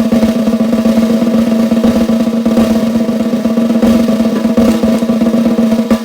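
A 14 x 5.5 Yamaha Recording Custom brass snare drum with Pure Sound Equalizer snare wires, tuned low, played in a continuous roll with a steady ringing tone underneath; the roll stops near the end.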